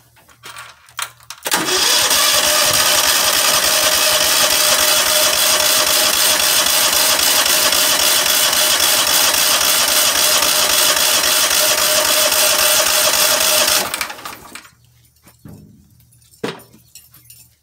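Cub Cadet riding tractor engine cranked by its electric starter for about twelve seconds, a steady, even churning that never catches, then cut off abruptly. The engine won't start, and its choke is stuck stiff.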